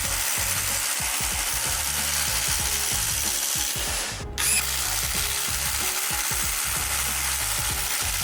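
Cordless impact driver hammering continuously as it bores a spade bit through wood. It stops briefly about four seconds in, then starts again.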